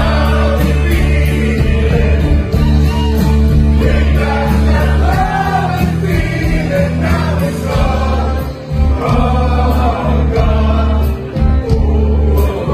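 A man singing into a microphone over amplified backing music with a steady bass line and a regular beat.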